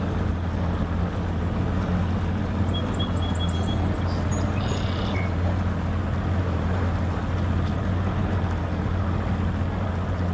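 Boat motor running steadily as the boat moves forward, a low even hum with no change in speed.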